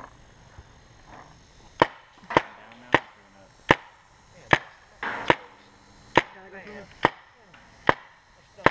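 Paintball marker firing single shots: about ten sharp pops, a little under a second apart, starting about two seconds in.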